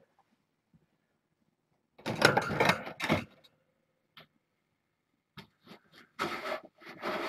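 Cat litter rushing and rattling in a litter box during a litter change: a loud gritty rush about two seconds in, then several shorter rushes and clicks near the end.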